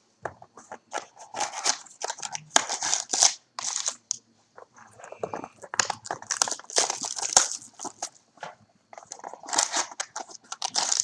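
Cardboard trading-card mini boxes being opened and the card packs pulled out: irregular crinkling, rustling and scraping of packaging in uneven bursts, with a few sharp clicks.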